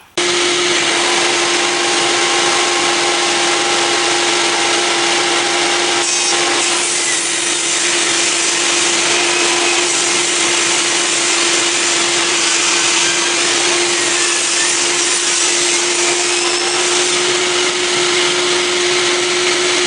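Table saw running steadily with a constant hum, its blade trimming the edges of a glued-up black walnut and white oak cutting board. The sound grows rougher and noisier about six seconds in.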